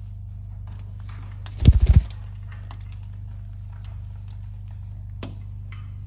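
A caique flaps its wings in one short burst of rapid wingbeats about a second and a half in, while hanging from a rope. Faint clicks and taps follow, all over a steady low hum.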